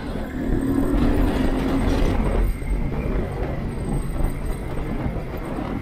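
Motorcycle engine running and wind rumbling past, picked up by a microphone clipped inside the rider's helmet while riding. A humming engine note stands out for the first couple of seconds.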